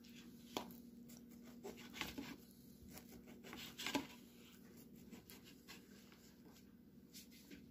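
Fork tapping and scraping on a plate, a few light clicks, the loudest about four seconds in, over a faint steady hum.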